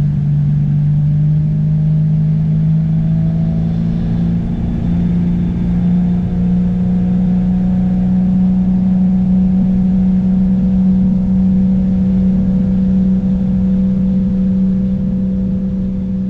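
Boat motor running under way, its note climbing for the first few seconds as it speeds up, then holding steady.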